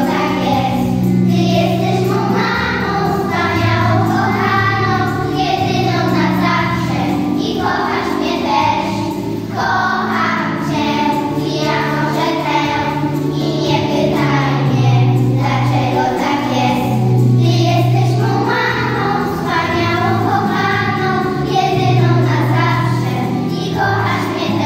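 A children's song: a group of children's voices singing together over an instrumental backing with a steady bass line.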